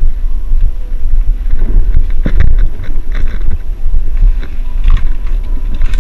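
Loud low rumble of buffeting and handling noise on a GoPro action camera's microphone, with scattered knocks and rustles.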